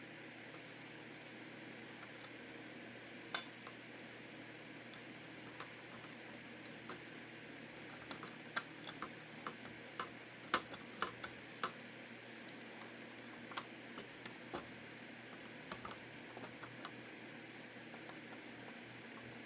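Scattered light clicks and taps of small hardware being handled while a ceiling fan is worked on, coming irregularly and thickest in the middle of the stretch. They sit over a steady low fan hum and hiss.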